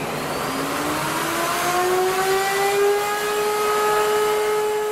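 Table-mounted wood router with a roundover bit switched on. Its motor whine rises in pitch over about three seconds as it spins up to full speed, then runs steady.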